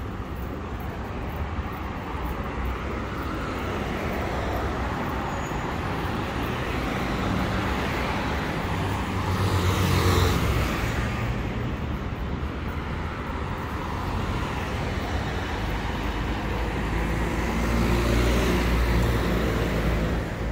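Road traffic on a multi-lane city street: a steady hum of cars, with one car passing close about halfway through and traffic swelling again near the end.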